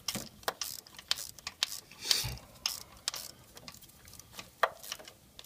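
Hand ratchet clicking in short back-and-forth strokes as a new spark plug is tightened by hand, with the light clink of the socket and extension, and one slightly louder knock about two seconds in.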